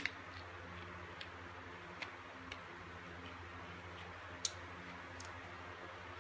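Sparse light clicks and crackles from a plastic soda bottle being handled, the sharpest about four and a half seconds in, over a low steady hum.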